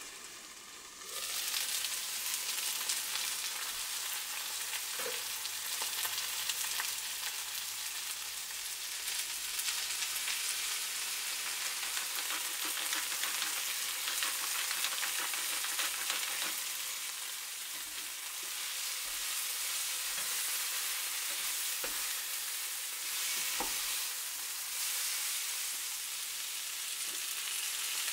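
Asparagus and bell pepper sizzling as they are stir-fried in a nonstick frying pan: a steady hiss that grows louder about a second in, with a few light clicks of a spatula against the pan.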